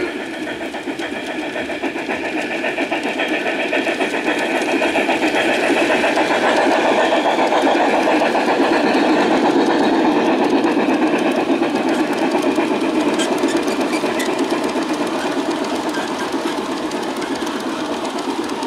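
A large-scale model train, two Bachmann Spectrum K-27 steam locomotives pulling a string of stock cars, running past on garden railway track. It makes a steady whirr of motors and gears with the rattle of wheels on the rails, growing louder as the train comes close and easing off a little near the end.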